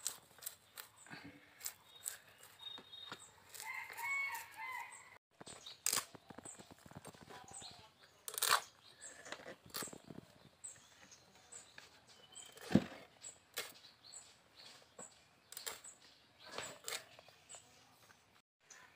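Irregular scraping and clicking as a rohu fish is scraped against the blade of a boti to take off its scales, with one louder knock a little past the middle. A chicken calls once about four seconds in.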